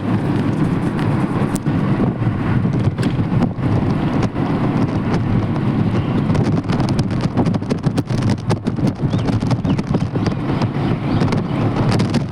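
Loud, steady rumbling noise with frequent crackles, the sound of wind buffeting the microphone.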